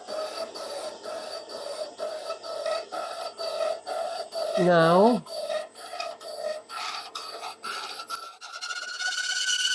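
Lenz boring head on a Deckel FP2 milling machine cutting a face groove in cast iron, a rhythmic scraping about three times a second as the single-point tool comes round. Near the end a high squeal sets in.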